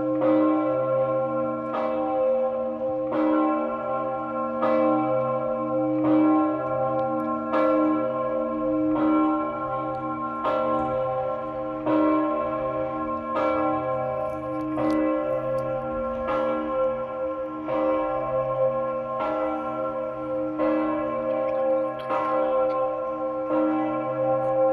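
Augustin, the great bronze church bell of the White Tower in Hradec Králové and the third-largest bell in the Czech Republic, ringing in full swing. It gives a steady stroke about every one and a half seconds, and each stroke's deep hum carries on under the next.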